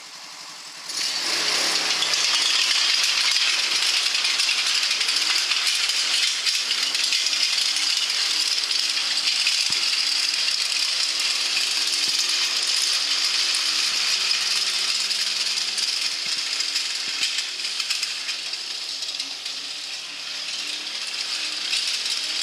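Homemade tracked mini tank driving on pavement: its metal-slatted tracks rattle and clatter loudly over a small engine whose pitch shifts up and down as the speed changes. The clatter starts abruptly about a second in.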